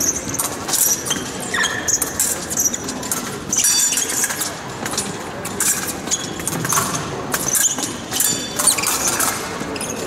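Épée blades clinking and scraping against each other during a fencing exchange: many irregular sharp metallic clicks, some with a brief high ring.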